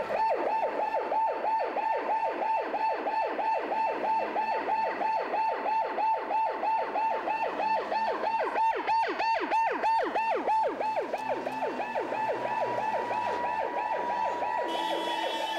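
Ambulance siren in a fast yelp, its pitch sweeping up and down about four times a second, settling into a steadier held tone near the end.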